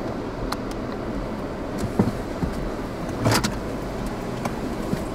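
Steady low rumbling background noise, with a few faint clicks and a short rustle about three seconds in.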